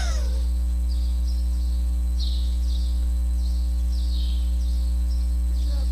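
A steady electrical hum, strong and low. It comes with a series of faint, short, high chirps, about two a second.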